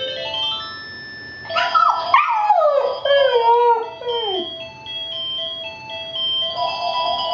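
Mobile phone ringtone playing a melody of stepped tones, with an American Eskimo Dog puppy howling along to it. About a second and a half in the puppy gives a run of wailing howls that slide down in pitch, and then the ringtone carries on alone.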